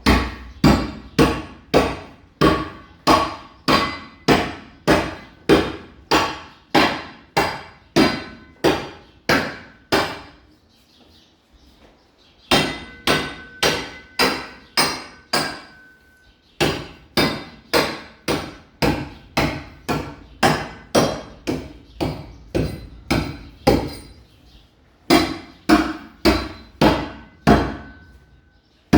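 A hammer striking repeatedly at about two blows a second, in runs broken by three short pauses; some blows leave a faint metallic ring.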